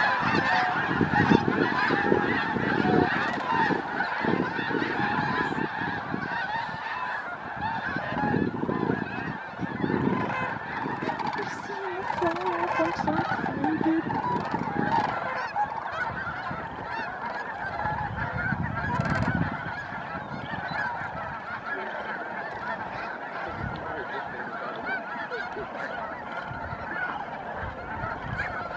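A dense, continuous chorus of honking from a large flock of snow geese, easing slightly about two-thirds of the way through. Intermittent low rumbles come and go underneath.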